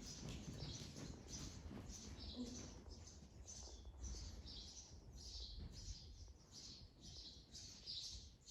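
A steady run of short, high chirps repeating about two or three times a second, over a faint low rumble of background noise.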